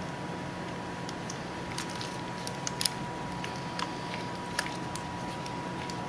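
Scattered light clicks and rustling from plastic wiring-harness connectors being handled at an LS engine's fuel injectors, with a couple of sharper clicks about three seconds in, over a steady hum.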